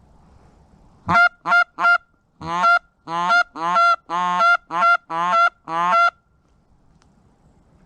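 Canada goose call blown by a hunter: a run of about ten honks over five seconds, a few short notes first, then longer ones, calling to passing Canada geese to turn them in.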